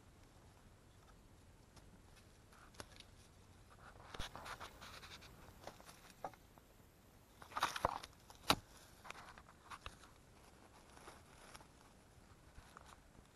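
Rustling and crackling of dry leaf litter and twigs close to the microphone as someone moves through the undergrowth and handles things at ground level. The crackles come in two busier spells, the second with a sharp click about eight and a half seconds in.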